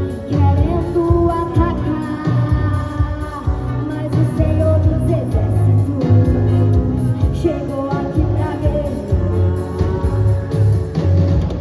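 Live gospel worship song: a female singer with a church band of keyboard, bass and drums.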